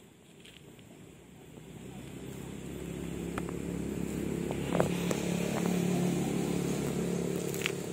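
A motor vehicle's engine running nearby, growing steadily louder over several seconds before easing slightly near the end, with a few light clicks over it.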